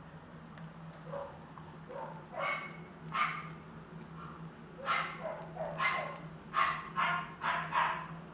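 A dog yipping and barking in short bursts, about ten in all, coming faster in the last few seconds.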